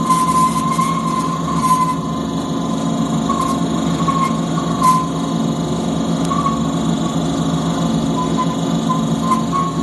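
Z28-215 two-axis thread rolling machine running, its two grooved dies rolling a thread onto a steel rebar: a steady mechanical hum with a wavering high whine over it and a few short clicks.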